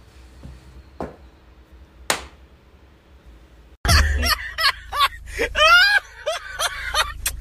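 A woman laughing loudly and hard in bursts with rising and falling pitch, starting about four seconds in. Before that there is only faint room noise with two soft knocks.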